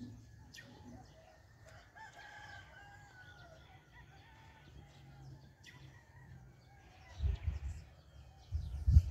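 A rooster crowing in the distance about two seconds in, with small birds chirping now and then. Near the end, loud low thumps on the microphone.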